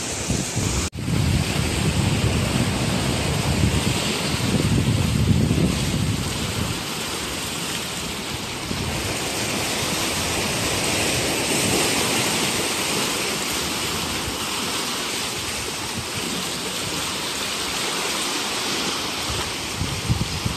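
Sea surf washing over a rocky shore as a steady hiss, with wind buffeting the microphone in low gusts, heaviest in the first few seconds. The sound cuts out briefly about a second in.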